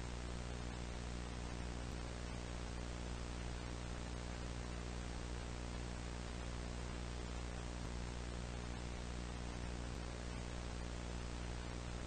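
Steady static hiss over a low electrical hum, like a broadcast channel that has lost its signal.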